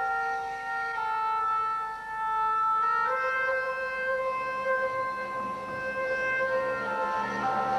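Slow instrumental music of long held notes that change pitch every second or so, playing as accompaniment to a stage dance.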